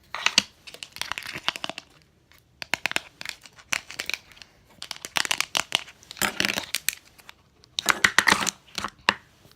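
Plastic packaging of a slime container crinkling and tearing as it is opened on top, in a run of short crackly bursts.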